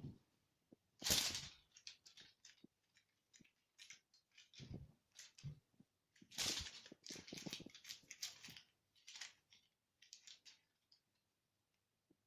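Kitten playing with a swung teaser toy: faint scattered rustling and clicking, with a few soft thumps.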